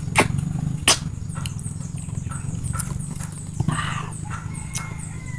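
Wet eating sounds of wild passion fruit: two sharp smacking clicks within the first second as the pulp is sucked from the shell, then a short slurp a little past the middle as a spoon scoops into the fruit. A steady low hum runs underneath.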